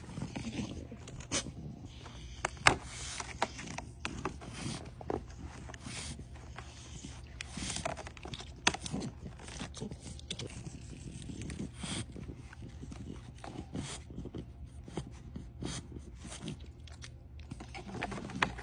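A French bulldog breathing and sniffing, with irregular clicks, taps and scrapes of a cardboard dog advent calendar as a door is pressed and pried open.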